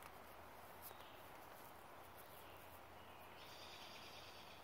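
Near silence: faint outdoor ambience with a steady hiss. A faint high-pitched chirping starts near the end.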